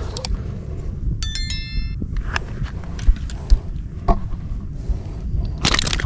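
A small bell rings briefly about a second in, two quick high rings overlapping, over a steady low wind rumble. A few sharp knocks follow around the middle, the loudest sounds here.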